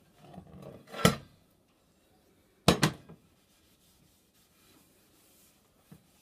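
Oil being rubbed into a cast iron skillet lid while it is handled: a short stretch of rubbing, a sharp knock about a second in, and a quick double knock near three seconds.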